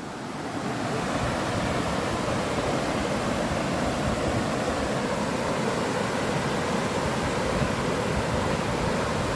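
Mountain river rushing steadily over rocks, a constant even rush that grows a little louder over the first second and then holds.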